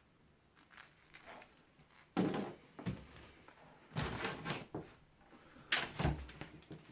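Clunks and clatter of scrap parts being handled and set down while a fan and its plugs are stripped for metal: a few sharp knocks with short rattling tails, the loudest about two, four and six seconds in.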